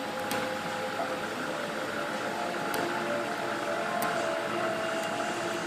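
Geeetech Prusa i3 3D printer printing: its stepper motors whine at shifting pitches as the print head moves, over the steady hiss of its cooling fan.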